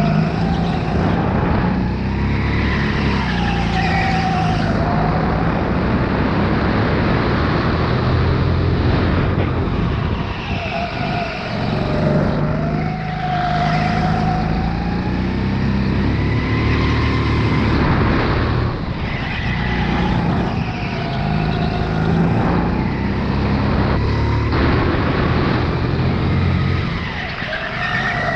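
Sodi RX8 rental go-kart's four-stroke engine running hard through a lap, its pitch climbing on the straights and falling as it slows for the corners, with tyres squealing through the turns.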